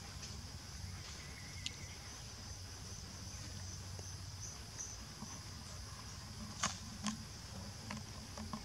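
Steady high insect chorus in the background, with a few sharp clicks and taps, the loudest about two-thirds of the way in.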